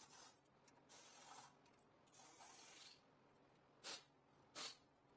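Faint handling of a screw-type brake caliper piston compressor on a brake caliper: a few soft metal scrapes and light clinks, with two sharper short ones near the end.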